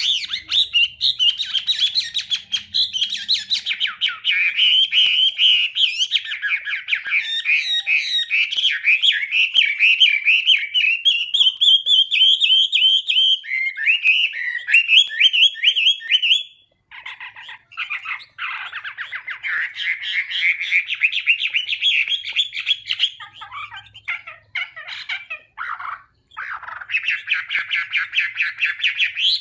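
Chinese hwamei singing a long, loud, varied song of rapid repeated notes and trills, broken by a short pause a little past halfway.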